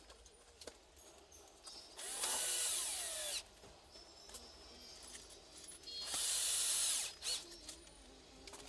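A power drill runs in two short bursts: about two seconds in for a second and a half, then again around six seconds for about a second. The first burst ends in a falling whine as the motor stops.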